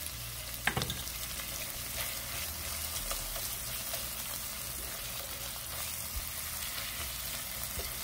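Diced onions sizzling in oil in a non-stick sauté pan, stirred with a silicone spoon, a steady crackling hiss. A brief clatter of knocks about a second in.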